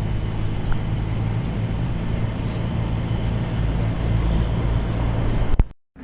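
A vehicle engine running steadily with a low, even hum, ending in a click and an abrupt cut near the end.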